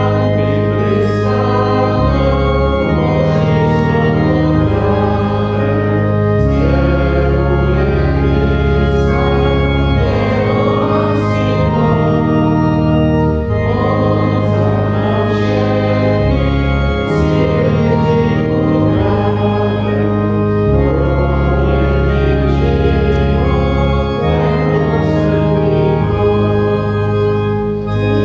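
Organ playing a slow hymn tune in sustained chords, the bass moving to a new note every second or two.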